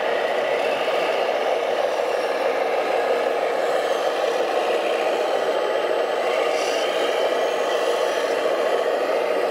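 Radio-controlled 1:14-scale model trucks running steadily as the tractor unit pulls a mud-loaded dump semi-trailer away.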